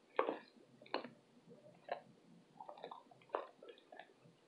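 Close-miked chewing of dry baked cornstarch brick: a series of short crunches, roughly one a second, with quiet gaps between.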